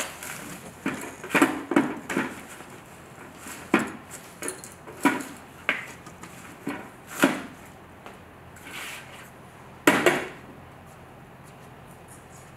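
Hard knocks and cracks from a cheap plastic motorcycle helmet being stamped on and pressed under a boot: a dozen or so irregular strikes, the loudest about ten seconds in.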